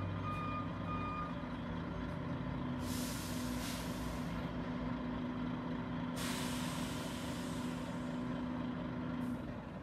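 Heavy truck's diesel engine running steadily, its reversing beeper pulsing until about a second in. Then two loud hisses of air, about three and six seconds in, typical of the truck's air brakes.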